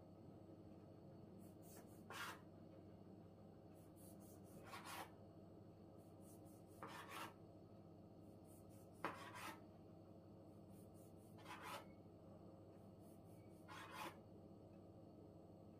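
Kitchen knife slicing rounds off a log of rolled baklava dough against a wooden table: six short scraping strokes, about one every two seconds, over a faint steady hum.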